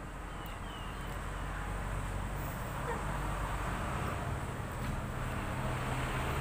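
Outdoor background noise: a steady low rumble and hiss that grows gradually louder, with two short chirps about half a second in.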